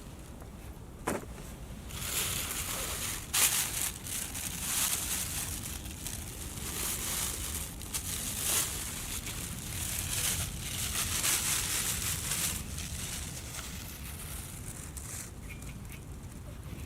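Packaging rustling and crinkling as it is handled, in irregular spells, with a sharp knock about three and a half seconds in.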